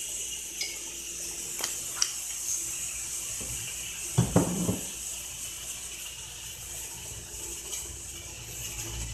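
Kitchen handling sounds as olive oil is drizzled from a bottle over zucchini slices in a metal baking pan: a few light clicks, then a short clatter of knocks about four seconds in, over a steady hiss.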